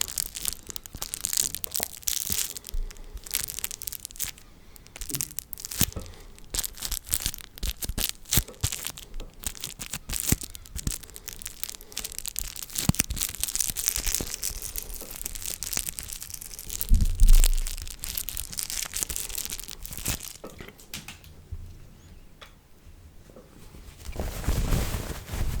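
Close-miked ASMR trigger sounds: dense crackling, rustling and quick clicks, with a loud low thud about 17 seconds in.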